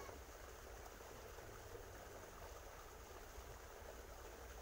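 Near silence: a faint, steady low rumble and hiss of outdoor background, with no distinct sounds.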